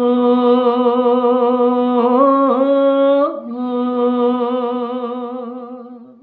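A man's voice singing unaccompanied, holding one long note with vibrato into a wired earphone microphone. The note breaks briefly about three seconds in, then carries on at the same pitch and fades out near the end.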